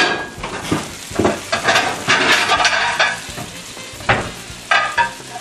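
Spaghetti and fresh tomato sauce sizzling in a frying pan, with stirring and a few sharp knocks of a utensil against the pan.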